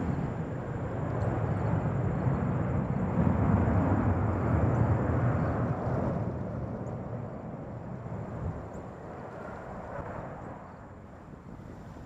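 Jet airliner passing overhead with a broad rumble that builds to its loudest about four seconds in, then fades away as it recedes.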